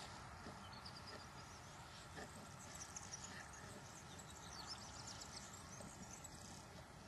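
Faint outdoor quiet with soft, irregular footsteps crunching on gravel.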